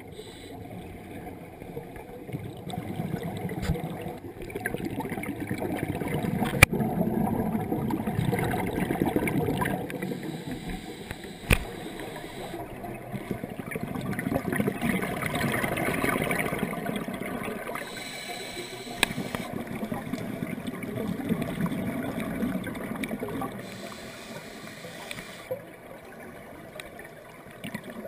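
Underwater sound of scuba breathing: bubbles from a regulator's exhaust gurgle and rumble in swells that rise and fade every few seconds. Two sharp clicks stand out, about a quarter and about halfway through.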